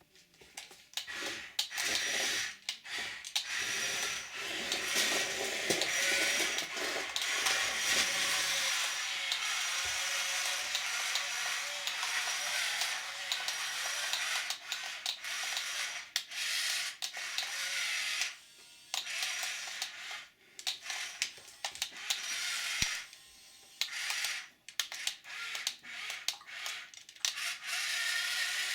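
Remote-control toy bulldozer's small electric motor and plastic gearbox whirring as it drives, stopping and starting again and again.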